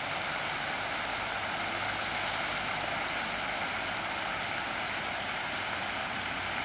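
Steady rushing and splashing of a large multi-jet garden fountain.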